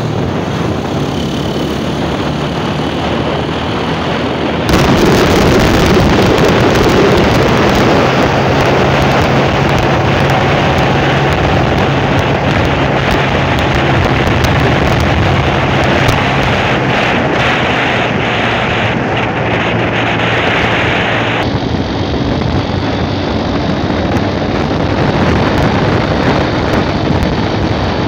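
Wind rushing over the microphone on a moving motorcycle, with the engine's steady low hum underneath. The wind noise jumps up sharply about five seconds in and eases again some seconds before the end.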